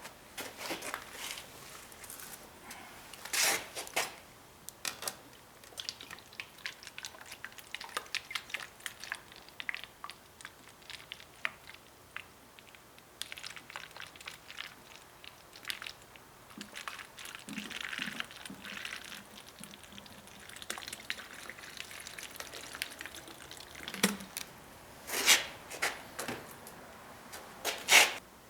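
Water with liquid sounds: drips, pouring and a crackling fizz, broken by many small clicks and a few louder knocks of a bottle being handled. The fizz marks water carbonated with CO2 from a welding gas cylinder.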